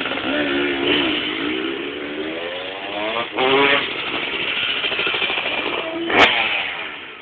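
Freestyle motocross bike engine revving up and down on the run-in to the jump, then a hard rising rev about three seconds in as it takes off the ramp, fading while the bike is in the air. A single sharp click comes near the end.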